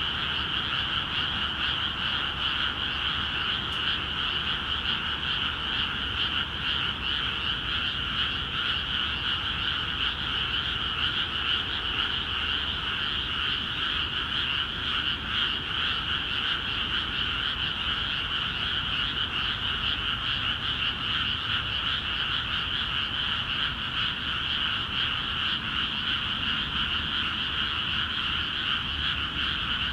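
Dense chorus of many frogs calling at once in newly flooded rice paddies, a steady, unbroken din with a shrill high layer over a lower one.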